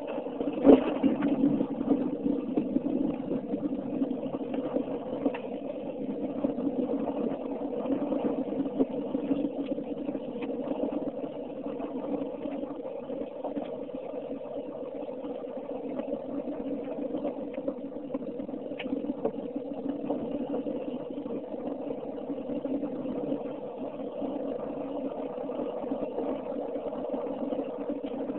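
Car driving along, heard from inside the cabin: a steady hum of engine and road noise, with one sharp knock about a second in.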